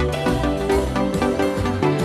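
Electronic background music with a steady beat and held synth notes over a bass line.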